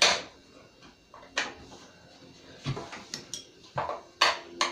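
Sharp metallic clinks and knocks of a wrench working a stuck bolt on a John Deere 111 lawn tractor. There are about six irregular strikes, the loudest at the start and two close together near the end.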